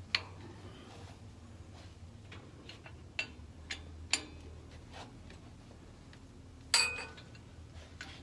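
Scattered metallic clicks and taps of tools and valve parts as a valve is worked out of a high-pressure air compressor, with a louder ringing metal clank about seven seconds in. A low steady hum runs underneath.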